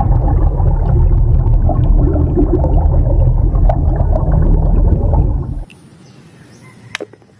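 Loud rumbling, gurgling water noise as a muddy toy is washed, cutting off abruptly about two-thirds of the way through; a single faint click follows near the end.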